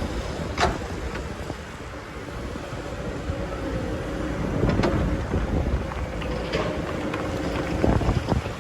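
Excavator working in sand: its engine runs steadily with a faint constant whine, and a few sharp clanks come through, one near the start, one about halfway and one near the end. Wind buffets the microphone.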